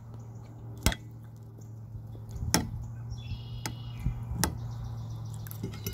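Eating at a table: about four sharp clicks and crunches, spread over the seconds, against a steady low hum. A faint high chirp comes about three seconds in.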